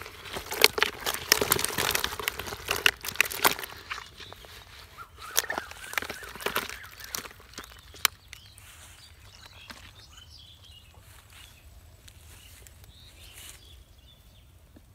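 Hands rummaging among live, slimy catfish in a plastic bucket: quick wet clicks and slaps, busiest for the first four seconds, then sporadic and fainter.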